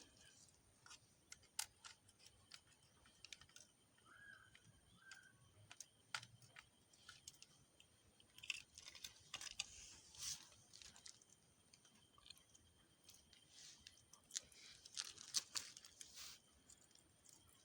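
Near silence with faint, scattered clicks and short rustles of electrical cables and terminals being handled while wires are connected, in two busier spells about halfway through and near the end. A faint steady high whine lies underneath.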